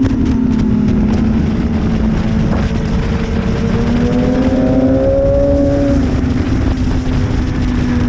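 BMW S1000RR's inline-four engine running hard on track, its pitch climbing through the middle, dropping about six seconds in, then rising again near the end.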